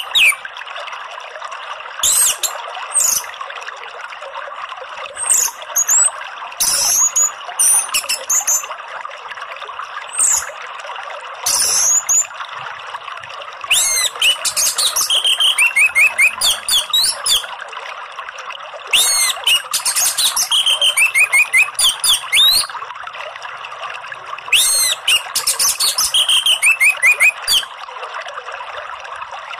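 Orange-headed thrush singing over a steady sound of running water: short, high, sweeping calls at first, then three longer phrases, each with a rapid run of repeated notes.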